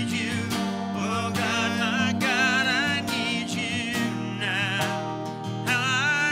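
A worship song: a voice singing with vibrato over acoustic guitar.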